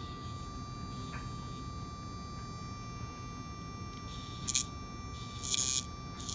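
Small electric pet nail grinder running with a quiet, steady high-pitched whine. Two short hissing sounds come near the end.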